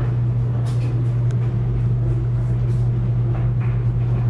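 A steady low mechanical hum, with a few faint light taps as fingers press the mosaic tiles against the wall.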